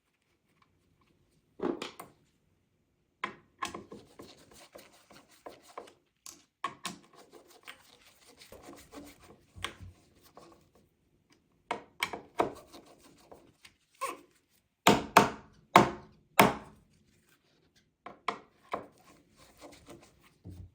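Door latch hardware being handled and fitted into the edge of a wooden door: scattered knocks, clicks and rubbing, with a run of four sharp knocks about fifteen seconds in.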